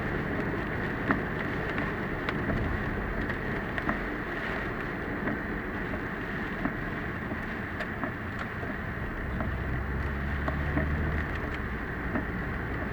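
Car driving, heard through a dashcam's microphone in typhoon weather: steady road and tyre noise with scattered sharp ticks, and a low hum that comes in about nine seconds in.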